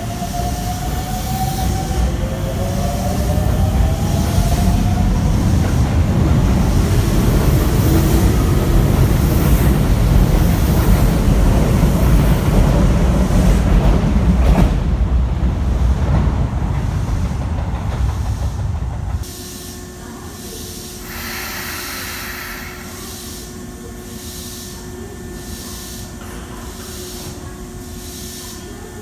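Electric commuter train running along the platform, a loud low rumble of wheels on rail that builds over the first few seconds and holds, with a rising electric motor whine at the very start. The rumble cuts off suddenly about two-thirds of the way in, leaving a quieter steady hum.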